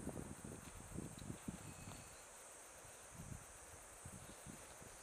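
Steady high-pitched drone of insects in the field, with soft low thumps and rustles in the first two seconds and a few more later on.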